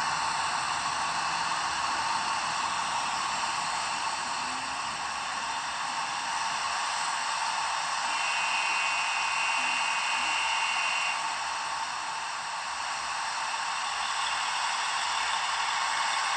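A miniature light-rail (VLT) model's sound module plays a train sound effect through its small speaker: a steady hiss with no bass. About halfway through, a high steady tone sounds for about three seconds.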